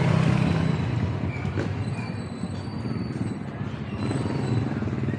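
Motorcycle engine passing close by, a steady hum that is loudest at the start and fades away over the first two seconds, leaving general street traffic noise.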